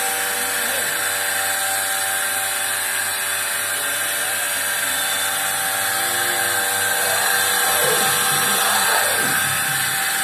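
Milking machine's vacuum pump running steadily: a loud, even mechanical hum over a hiss, rising slightly in level about two-thirds of the way in.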